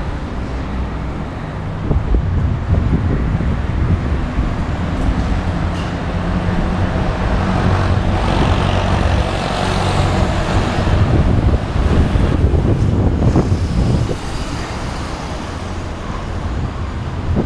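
Road traffic, motor vehicles running past, with wind rumbling on the microphone of a moving bicycle. The traffic grows louder from about two seconds in, is loudest around the middle, and eases a few seconds before the end.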